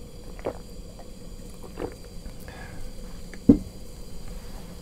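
Cooking at a Trangia stove: three soft knocks, the last and loudest about three and a half seconds in.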